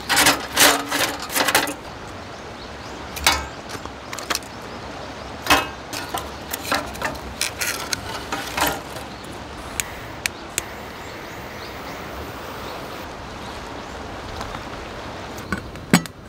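Scattered knocks and clinks of hard objects, a quick cluster in the first two seconds and then single ones every second or two, over a steady background.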